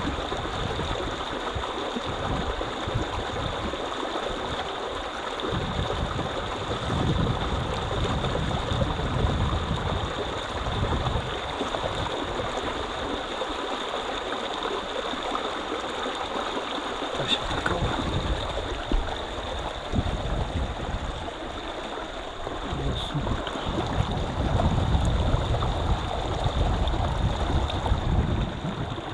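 Stream water running steadily over the riverbed, with low rumbles that come and go every few seconds.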